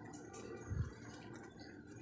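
Plastic ladle stirring milk custard in a nonstick pan: faint scraping with a few light ticks, and one soft low thump just under a second in.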